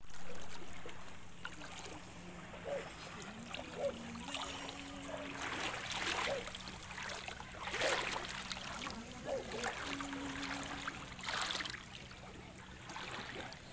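Water splashing and sloshing in irregular surges, the largest about six, eight and eleven seconds in, over a faint steady low hum.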